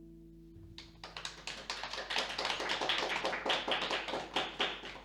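The last acoustic guitar chord of a song rings and fades away. About a second in, a small audience starts applauding with dense, irregular clapping.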